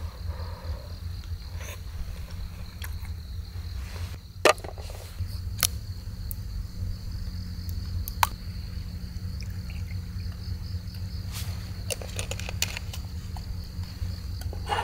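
Crickets chirping steadily over a low rumble, with a few sharp clicks and clinks of a small glass bottle and tableware being handled; the loudest click comes about four and a half seconds in, and a quick run of clinks comes a few seconds before the end.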